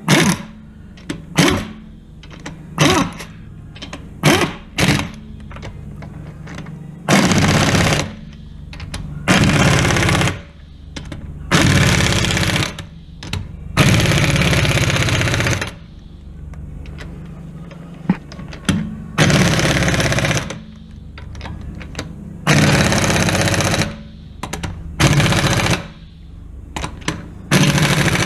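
Impact wrench hammering in repeated bursts, spinning fasteners in place: a run of short blips, then about seven longer bursts of a second or two each.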